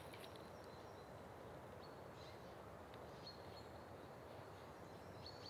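Quiet forest ambience: a faint steady hiss with a few short, faint high bird chirps, about two seconds in, just after three seconds, and again near the end.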